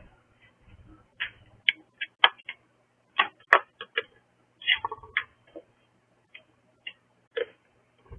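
A scattered run of irregular sharp clicks and crackles, uneven in spacing and loudness, with the loudest few between about two and four seconds in.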